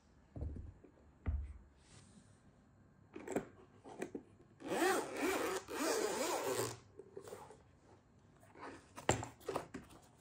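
Objects being handled at close range: two low thumps near the start, a few knocks, then a zipper-like rasp lasting about two seconds, and a run of small clicks and knocks near the end.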